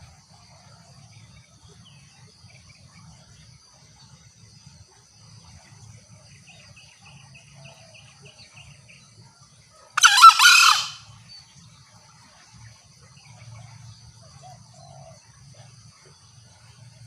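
A green junglefowl gives one short, loud call about ten seconds in, over steady high-pitched insect trilling.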